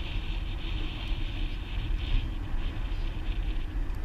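Steady outdoor rumble and hiss: wind buffeting the microphone and traffic on the neighbouring highway bridge.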